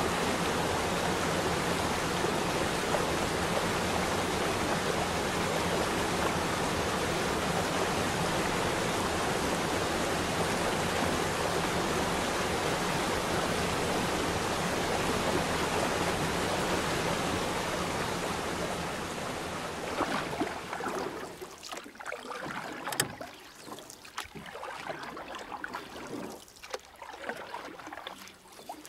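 Steady rushing water. About twenty seconds in it gives way to quieter, uneven lapping and splashing with sharp drips.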